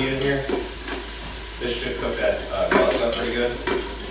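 A utensil stirring and scraping food that sizzles in the hot stainless steel inner pot of an Instant Pot, just switched off.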